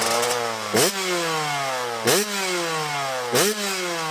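Small motorbike engine being revved over and over. The pitch jumps up quickly about every second and a quarter, then slowly falls back.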